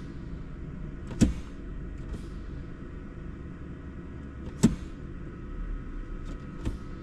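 Two sharp knocks, about three and a half seconds apart, over a steady low hum in the cab of a parked truck.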